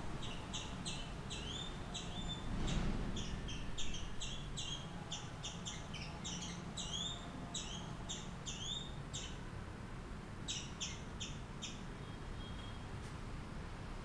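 A bird chirping rapidly: short, high chirps several times a second, some sliding up or down in pitch. The calling stops about nine seconds in, then comes back in a brief burst a little later.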